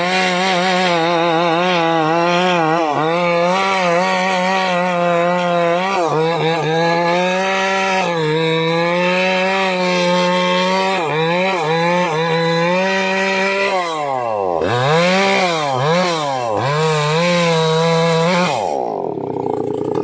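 Maximus 57cc two-stroke chainsaw running at full throttle as it cuts through a teak log, its engine note dipping under load and picking back up as the chain bites. Near the end it revs down and up several times, then drops back toward idle as it comes out of the cut.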